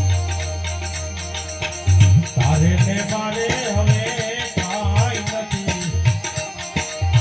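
Bhajan mandal performing a devotional song: a steady beat of low drum strokes with jangling rattle percussion, and a singer's voice coming in about two and a half seconds in.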